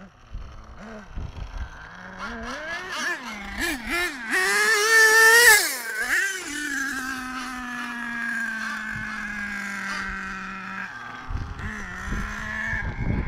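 Small nitro glow engine of an RC monster truck revving up and down in quick blips, loudest about five seconds in, then held at a steady high pitch that slowly falls over several seconds.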